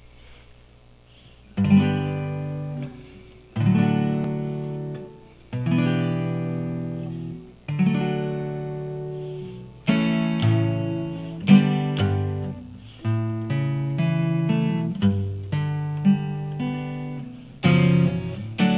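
Solo acoustic guitar playing a song's intro. Chords are struck about every two seconds and left to ring, and from about ten seconds in the playing turns busier, with shorter notes closer together.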